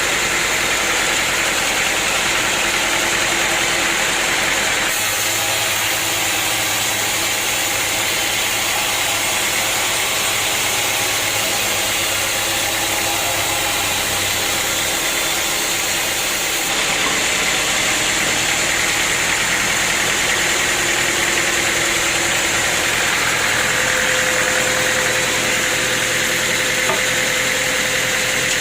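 Sawmill machinery running steadily, with a strong high hiss over a motor hum. The sound changes abruptly about 5 seconds in and again about 17 seconds in.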